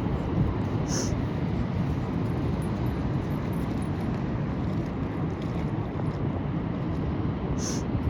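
Steady low rumble of a car driving, heard from inside, with two brief high ticks about a second in and near the end.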